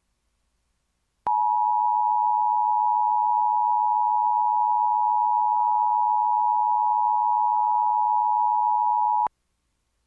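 Emergency Alert System attention signal: the 853 and 960 Hz two-tone sounding together, steady for about eight seconds, starting about a second in and cutting off sharply near the end. It is the alert tone of a coordinated monthly EAS test.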